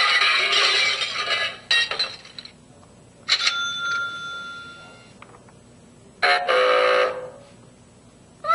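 Sound-effects machine playing short canned effects one after another with gaps between. A dense noisy effect stops about a second and a half in. A sudden bell-like ring about three seconds in fades away, and a brief pitched effect follows about six seconds in.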